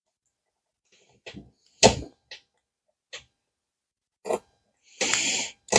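A few separate knocks and clicks of hard parts being handled and fitted during office-chair assembly, the loudest about two seconds in, then a short scraping rustle near the end.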